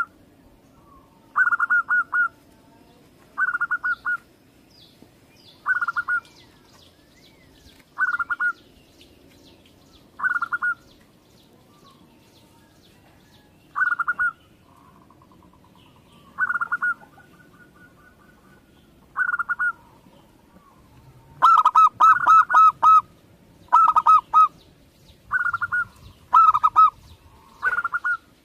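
Zebra dove (local Indonesian perkutut) cooing: short, rapid stuttering phrases repeated about every two seconds, coming closer together and louder in the last third.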